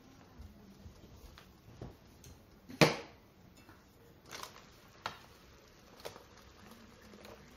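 Scattered knocks and clicks as the lid of a compact electric hot plate is handled and lifted off and chopsticks work the food on the plate, with one sharp knock about three seconds in the loudest.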